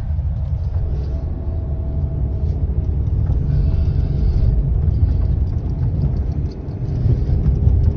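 A vehicle driving along a road: a steady low rumble of engine and tyres, with light clicks and rattles over it.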